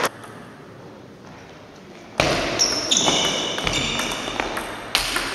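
Table tennis rally: the ball clicking sharply off the bats and the table, about three hits a second, ringing in the hall. It starts suddenly about two seconds in, after low room noise.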